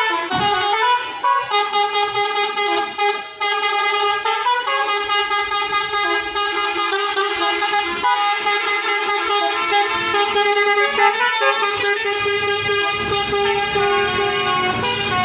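Intercity bus's 'basuri' musical horn playing a long melody of held notes that step from pitch to pitch. A low rumble joins in near the end.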